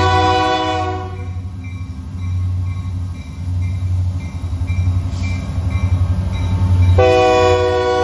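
Canadian National diesel freight locomotives passing slowly. The lead unit sounds its multi-note air horn in two blasts, one ending about a second in and the next starting about seven seconds in, over the low rumble of the engines. A bell dings about twice a second between the blasts.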